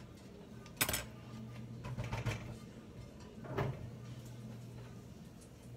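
Cookware and utensils clinking: a sharp clack about a second in, softer knocks, then another clatter past the middle, over a low steady hum.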